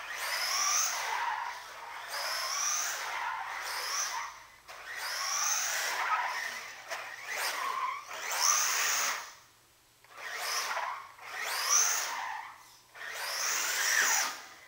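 1/10-scale electric RC buggy with an EZRun 10T 3650 brushless motor, driven hard in short bursts of throttle. The motor whines up in pitch about seven times, each run lasting a second or two, with brief pauses between.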